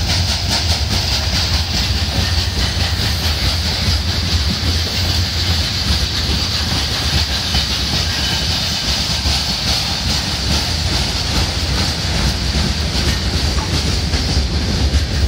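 Freight train wagons rolling past close by at a level crossing: a loud, steady rumble of steel wheels on the rails with quick clickety-clack.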